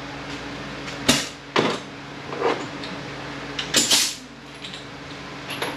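Metal tools and parts being handled for a transfer case teardown: several separate clanks and knocks, the sharpest about a second in and a longer, brighter clatter near four seconds, over a steady low hum.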